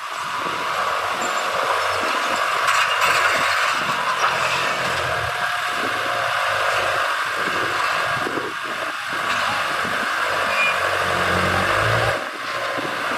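Heavy diesel earthmoving machinery running under load, a steady engine hum under a constant mechanical clatter and rush; the engine note swells about ten seconds in and eases off briefly near the end.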